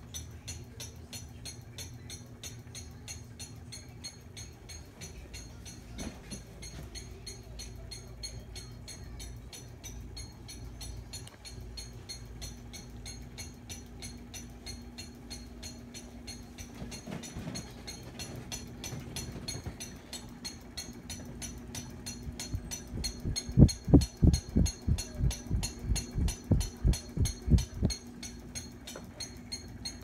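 Ceiling fan running with a steady hum and a fast, even ticking throughout. Near the end comes a run of loud, low thumps, about three a second for several seconds.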